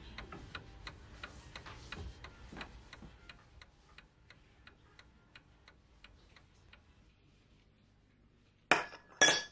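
Wooden mantel clock ticking steadily, about three ticks a second, fading away after several seconds. Near the end, two short loud sounds break in.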